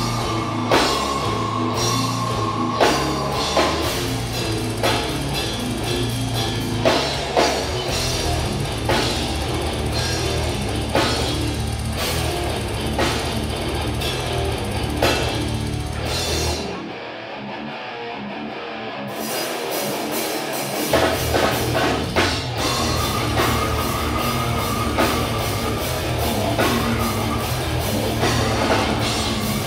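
Live death metal band playing loud: heavily distorted electric guitars over a fast drum kit. About two-thirds of the way in the sound briefly thins out, losing its low end, before the full band comes back in.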